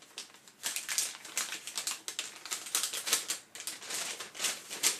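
Paper packaging rustling and crinkling as items are lifted out of a cardboard shipping box, in a quick irregular run of crackles.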